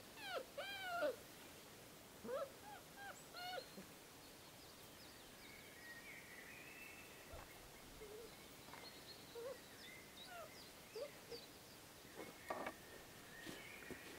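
Hamiltonstövare puppies whining and squeaking in short calls that rise and fall in pitch, the loudest in the first second, then smaller, fainter whimpers scattered through the rest.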